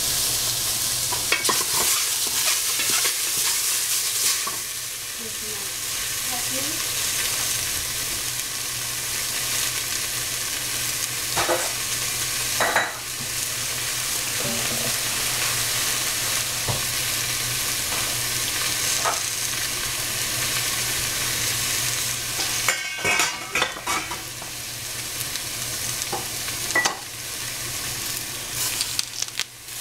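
Cubes of tofu sizzling as they fry in a stainless steel pot, with a wooden spatula scraping and knocking against the pot now and then as they are stirred.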